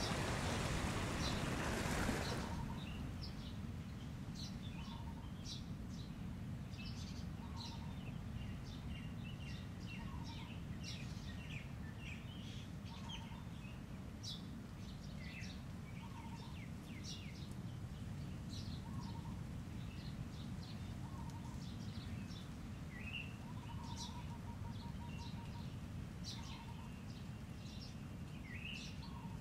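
Birds chirping and calling over a steady low hum, with a short lower note repeating about every two to three seconds. It opens with a rushing noise that drops away about two seconds in.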